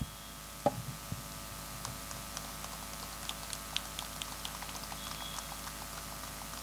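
Quiet handling noise picked up by the stage microphones over the steady hum of the sound system: one sharp knock a little under a second in, then scattered light clicks and ticks for a few seconds.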